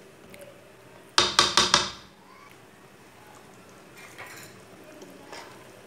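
A wooden spoon knocked four times in quick succession against the rim of a metal cooking pot, shaking off the curry after stirring, followed later by a couple of faint knocks.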